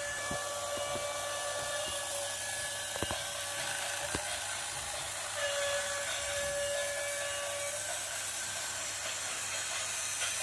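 Toy model train running on plastic track: its small electric motor whines steadily with a hiss, swelling for a moment as the train passes, with a few sharp clicks from the wheels on the track.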